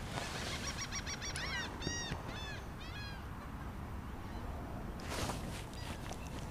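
A bird calling: a quick series of short, arched calls over the first three seconds, then a brief rush of noise about five seconds in, over a steady low rumble.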